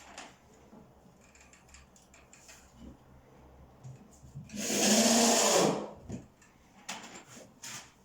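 Cordless drill-driver running for about a second and a half midway, driving a screw into the floor to stop it squeaking, followed by a couple of sharp knocks near the end.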